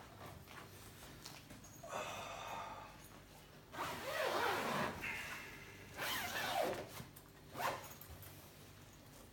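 Zipper on a fabric pet playpen being pulled along to close the mesh top, in three long pulls and a short last one.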